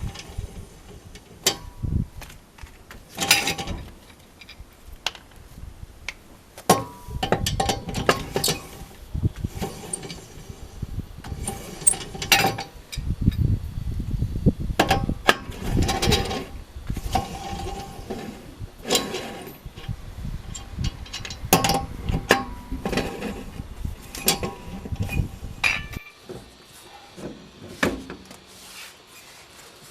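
Irregular metal clinks, knocks and clatter of hand tools and wheel parts being handled during a car tyre change. A low rumble under them drops away near the end.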